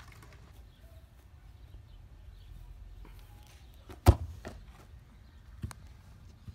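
A soccer ball kicked once with a sharp thump about four seconds in, then a fainter knock about a second and a half later, over faint outdoor background.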